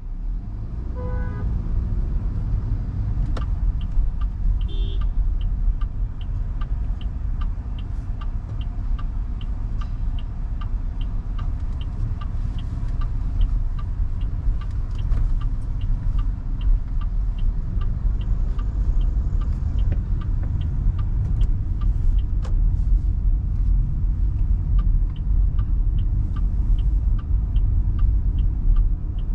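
MG Hector Plus 1.5-litre turbo petrol SUV driving in traffic, a steady low rumble of engine and road noise, with a turn-signal indicator ticking evenly about twice a second from about five seconds in. A short chime sounds about a second in.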